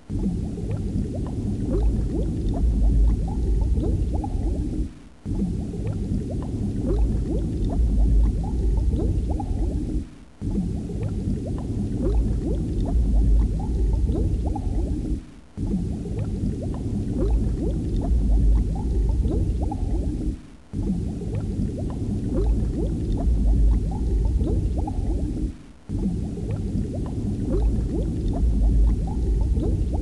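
Underwater ambience of bubbling water, a roughly five-second loop that repeats with a brief dropout between each pass.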